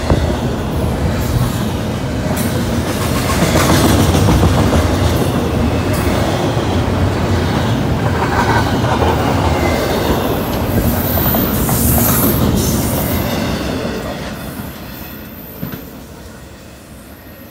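Double-stack intermodal freight train's container cars rolling past close by: a steady rumble and clatter of steel wheels on the rails, fading over the last few seconds as the end of the train moves away.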